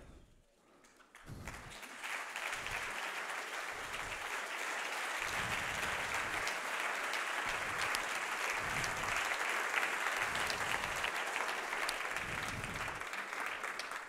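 Audience applauding, starting about a second in, building quickly and then holding steady.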